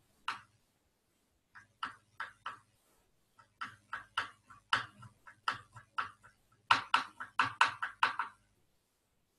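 Computer keyboard typing: quick, irregular key clicks in three short runs, stopping about a second before the end.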